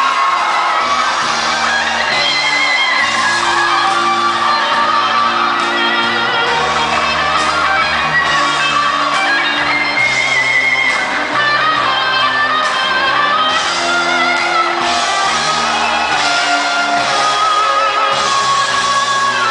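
Rock music with guitar playing loudly and steadily over a sound system, dance music for a stage routine.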